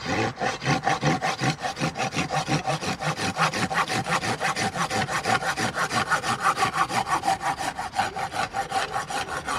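Folding hand saw cutting into a wooden log with quick, even back-and-forth strokes.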